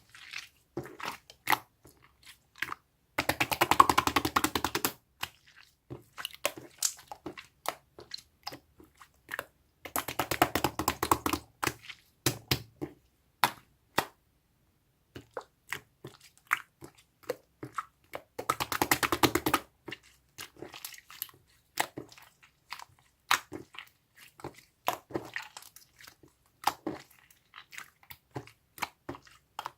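Slime being squeezed and stretched by hand: scattered wet clicks and pops, with three spells of rapid crackling about 3, 10 and 19 seconds in.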